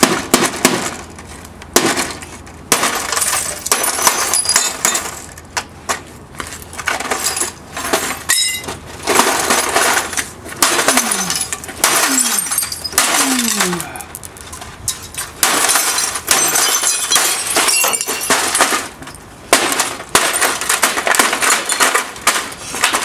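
Repeated hammer blows smashing a plastic inkjet printer, with plastic cracking, crunching and small pieces clattering onto asphalt in irregular bursts. Near the end a foot stamps down on the broken printer casing.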